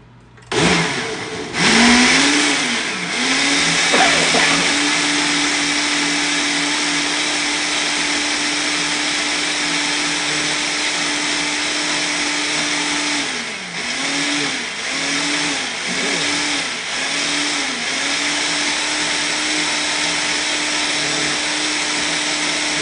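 Countertop blender motor starting about half a second in and running at high speed, blending a thick beet, strawberry and kale smoothie. Its pitch sags and recovers about five times in a row past the middle as the load drags on the blades.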